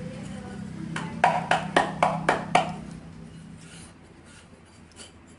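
A quick series of about six sharp clicking taps on a metal gas stove burner as its dirt is cleaned out by hand, coming about a second in. Fainter handling sounds follow.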